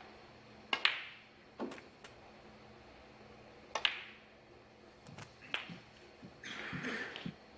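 Snooker balls clicking: the cue tip striking the cue ball and sharp ball-on-ball contacts, several separate clicks spread across a few seconds, each ringing briefly. A short rush of noise sounds for under a second near the end.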